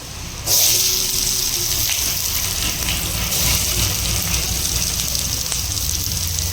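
Food frying in a hot pan: a loud sizzle starts suddenly about half a second in, as if something has just gone into the hot oil, then carries on steadily.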